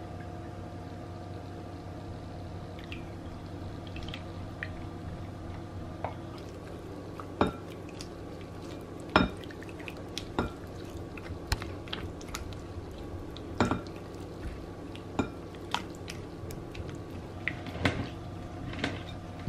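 A silicone spatula scrapes melted garlic butter onto raw shrimp and stirs them in a glass mixing bowl: wet squishing and sloshing, with scattered sharp taps of the spatula against the glass. A steady faint hum runs underneath.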